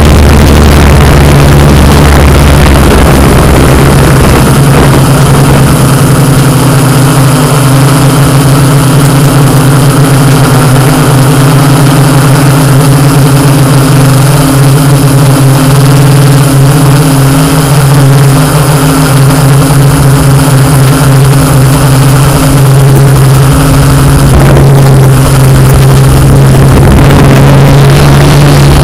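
Multirotor drone's motors and propellers humming loudly and steadily, with a slight change in pitch about three-quarters of the way through.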